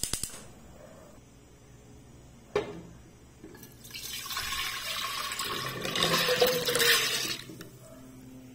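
Water poured from a bowl into an empty pressure cooker pot, splashing steadily for about four seconds. It is preceded by a quick run of clicks at the start, as the gas burner is lit, and a single knock.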